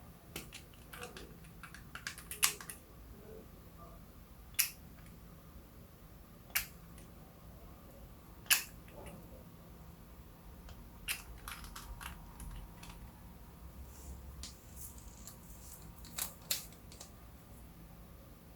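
Sharp plastic clicks and snaps from makeup being handled over slime, a few seconds apart, with small crackles between them.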